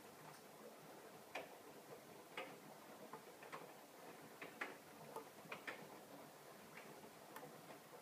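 AEG Lavamat L88489FL front-loading washing machine tumbling a load, heard as soft, irregular clicks and taps, about a dozen and some in quick pairs, as the laundry turns in the drum. A faint steady hum lies under them.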